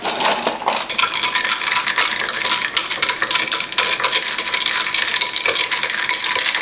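Ice cubes rattling and clinking against the inside of a lidded glass cup as it is shaken, a quick, steady run of small clicks.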